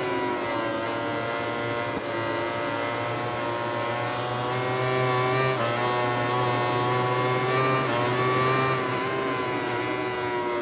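Yamaha YZR-M1 inline-four MotoGP engine heard from onboard the bike at racing speed. Its pitch climbs and falls several times, with sudden drops as it changes gear.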